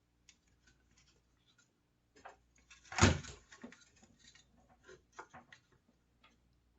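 Plastic parts of a router housing being handled and fitted together: scattered small clicks and taps, with one sharper knock about three seconds in.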